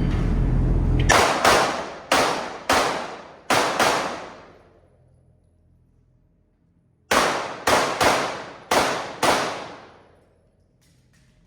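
Pistol shots in two quick strings, about six and then five, each shot echoing with a long fading tail in an indoor range, with a pause of about three seconds between the strings.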